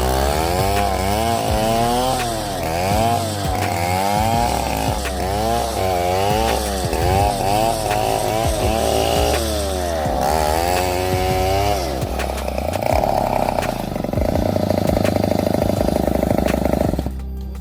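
Chainsaw engine revving, its pitch swinging down and up about once a second, then held steady at high revs for the last few seconds before it stops abruptly.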